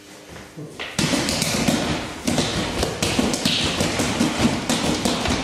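A fast flurry of open-palm slaps and fist strikes on a rubber torso training dummy, a dense run of sharp slaps and thuds, several blows a second, starting about a second in.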